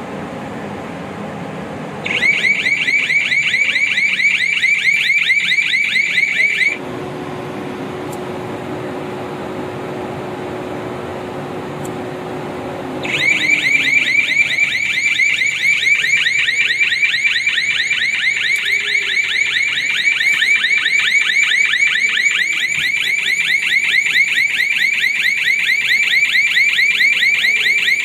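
Welding habitat's electronic alarm sounder going off during an alarm function test: a loud, high-pitched, rapidly pulsing beep. It sounds about two seconds in, stops for about six seconds while a steady low hum carries on, then sounds again through the rest.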